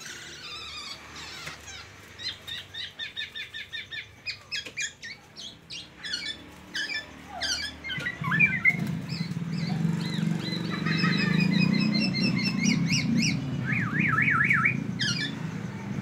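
Caged black-naped oriole singing quick, varied phrases of whistled notes and trills, the learned white-rumped shama song it mimics. A low background rumble comes in about halfway through.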